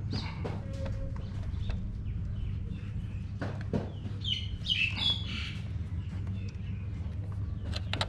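Scattered light clicks and taps of a wrench working on the tractor's diesel injection pump fitting, over a steady low hum. A bird chirps several times about halfway through.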